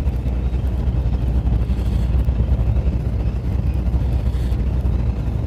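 Fishing boat's engine running steadily, a low, even hum.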